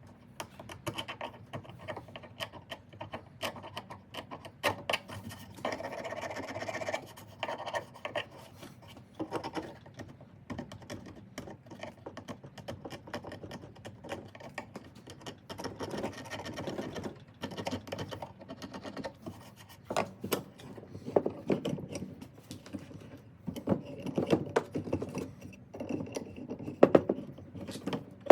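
Irregular scraping and scratching with many sharp clicks, as the soft rubber grip material is worked off the ratchet's metal handle.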